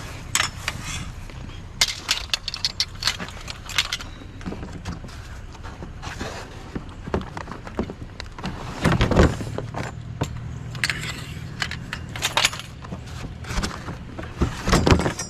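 Light metal scrap clinking and rattling as pieces are picked up and gathered by hand, with many sharp clanks, the loudest about nine seconds in and near the end, over a steady low hum.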